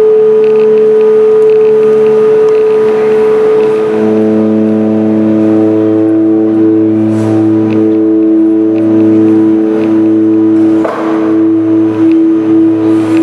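Loud amplified improvised music through a guitar amplifier: sustained droning tones that hold steady, then drop to a lower pitch about four seconds in.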